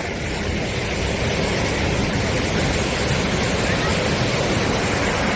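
Sea surf on a sandy beach: a steady rushing wash of waves that swells up at the start and then holds.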